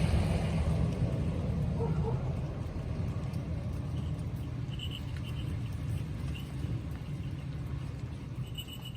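Steady low rumble of outdoor noise with an even hiss over it, and a few faint, short high tinkles about halfway through and again near the end.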